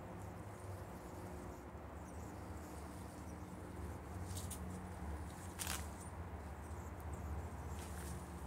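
Faint scratching and rustling in soil and dry leaf litter as a cat digs and moves through a garden bed, with a few sharp crackles in the middle and near the end, over a low steady hum.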